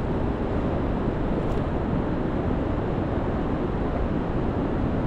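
Steady wind rumbling on the microphone, with no distinct events.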